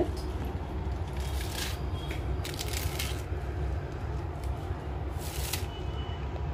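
Iceberg lettuce leaves being torn apart by hand, a few crisp crackling rips, over a steady low hum.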